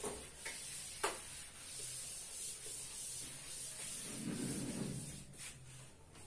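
Chalkboard duster rubbed back and forth across a chalkboard, wiping it clean, with a sharp knock about a second in.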